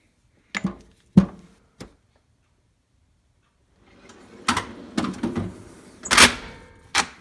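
Three sharp metallic clicks of hand tools being set down in a steel tool-box drawer, then, about four seconds in, a rattling slide with several loud clunks as drawers of the tool box are shut and opened.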